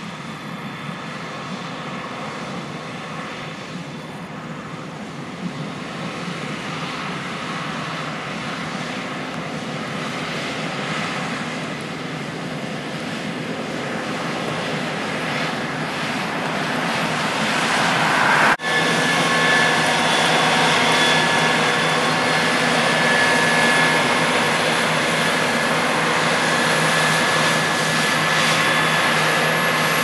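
Case IH 6130 Axial-Flow combine harvesting soybeans: a steady drone of engine and threshing machinery that grows louder as the combine approaches. About two-thirds through the sound cuts abruptly to a closer, louder run with a thin steady whine above the drone.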